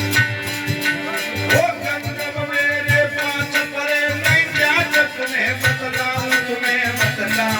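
Instrumental Indian folk music accompaniment: regular drum strokes and jingling percussion under held and sliding melodic notes.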